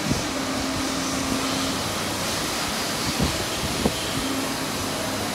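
Steady hum of a TAIKAN T-V856S CNC vertical machining center, with a steady low tone that comes on twice, once near the start and again near the end, as the tool-change arm is jogged back toward its zero-degree position. There are two faint clicks in between.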